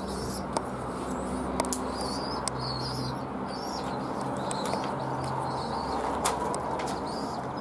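Pigeons fluttering and flapping their wings inside a wire carrier cage as a hand reaches in to catch one, with a few sharp clicks. Repeated high bird chirps run throughout.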